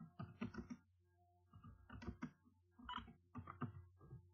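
Faint computer-keyboard typing in about four quick bursts of keystrokes, over a steady low electrical hum.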